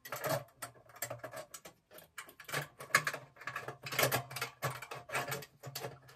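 Lid of a stainless steel Cornelius keg being fitted and latched by hand: a run of irregular metallic clicks and rattles over a steady low hum.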